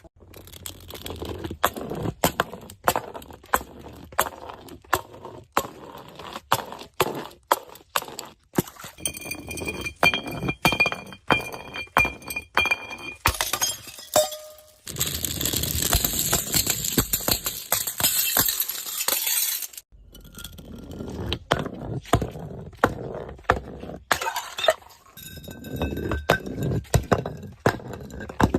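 Glass being smashed and crushed: a long run of sharp breaking impacts with clinking shards, some of them ringing, and a stretch of continuous crunching about halfway through.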